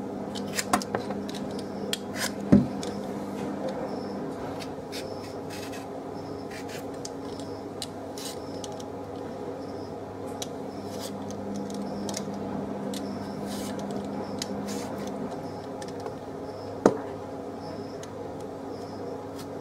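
Potato being peeled with a vegetable peeler: short scraping strokes at irregular intervals, with two louder knocks, one a couple of seconds in and one near the end, over a steady low hum.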